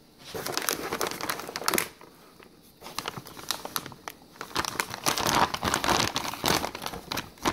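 Anti-static shielding bag crinkling and rustling as the graphics card inside it is lifted and handled. It comes in bursts, with a short pause about two seconds in, and grows louder and denser over the last couple of seconds.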